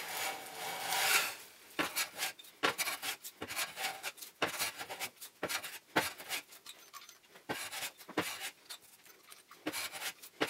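Metal hand plane taking fine shavings off a wooden frame in quick passes. One longer stroke comes first, then a run of short, sharp swishes about one every three-quarters of a second, as the face is levelled flush.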